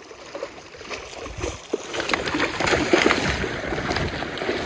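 Irregular water splashing and sloshing in a shallow stream, building up about a second in and staying loud.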